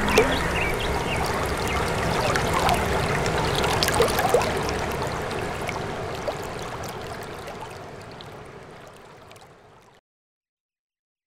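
Water gurgling and lapping, with scattered small clicks and plops, slowly fading out until it cuts to silence about ten seconds in.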